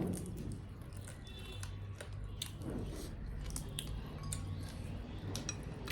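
A person chewing food close to the microphone, with scattered sharp crunches and clicks.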